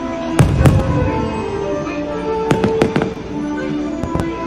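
Aerial fireworks shells bursting with sharp bangs over a fireworks show's music soundtrack. Two bangs come about half a second in, three follow in quick succession about two and a half seconds in, and another comes near the end.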